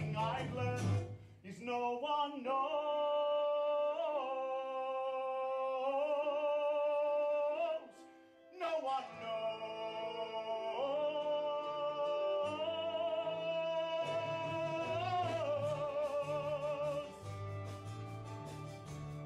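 Male singer holding long notes with vibrato over instrumental accompaniment in a show tune. The voice stops briefly about eight seconds in, then takes up the next held note.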